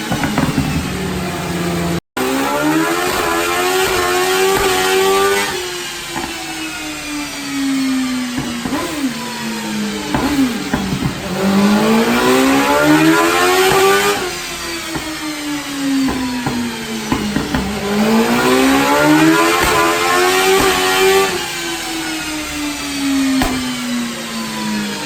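BMW S1000RR inline-four motorcycle engine in a race buggy, run on a dyno: three times it pulls up through the revs over a few seconds and then winds back down. The sound cuts out for an instant about two seconds in.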